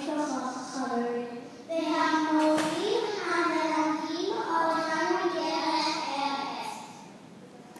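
A child's solo singing voice, amplified through a microphone: a slow melody with long held notes that stops near the end.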